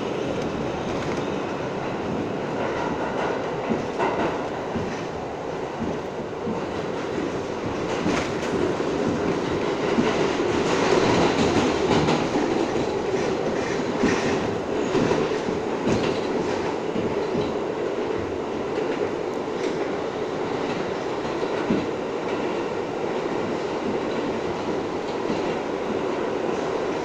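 R62 New York City subway car running at speed through a tunnel, heard from inside the car: a steady rumble of wheels and motors with scattered clicks from the wheels on the track. It gets louder about ten seconds in and eases off after about fifteen.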